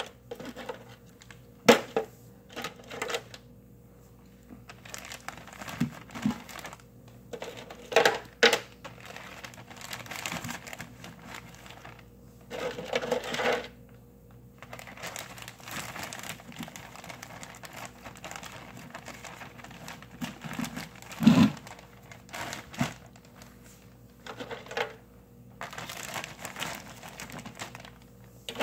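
Handling sounds of cleaned blue crabs being packed into plastic freezer bags: crinkling plastic with scattered sharp clicks and knocks, the loudest a knock about 21 seconds in.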